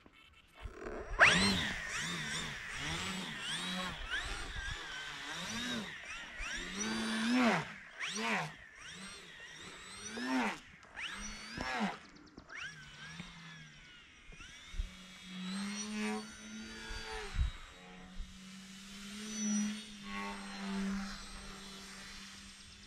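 An Edge 540 RC aerobatic plane's electric motor and propeller whining overhead, the pitch swooping up and down again and again as the throttle is opened and closed. In the second half the whine holds steadier and longer.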